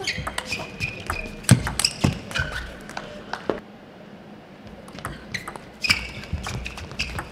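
Table tennis rallies: quick sharp clicks of the ball off the paddles and table, with sneakers squeaking on the court floor, and one heavy thud about a second and a half in.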